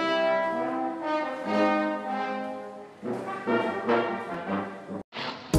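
Channel intro jingle music: held pitched notes sounding together, then a run of shorter notes, ending in a brief hiss.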